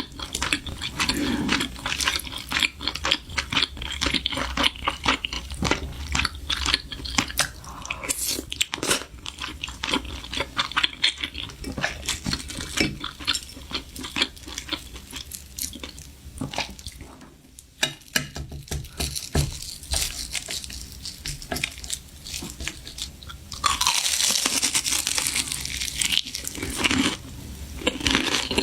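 A person eating: crisp bites and chewing with many sharp crunches, and a louder run of dense crunching near the end.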